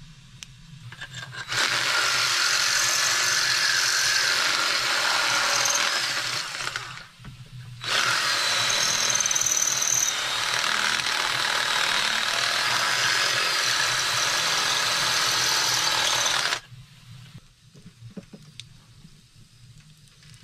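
Cordless drill boring through a metal plate in two long runs: the first about a second and a half in, a brief pause around seven seconds, then a second run of about nine seconds. A faint high whine rides over the drilling.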